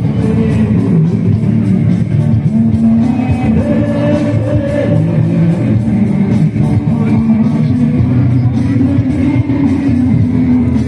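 A man singing live into a microphone over amplified band music with electric guitar and a steady beat.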